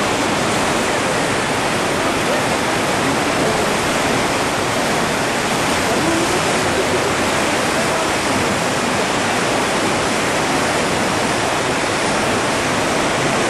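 Steady rush of whitewater rapids on a river slalom course.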